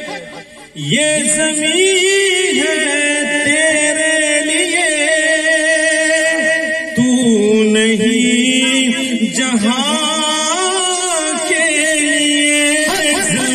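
A man singing a naat, an Urdu devotional poem in praise of the Prophet Muhammad, into a microphone, with long held, ornamented notes. There is a short break about half a second in before the voice comes back.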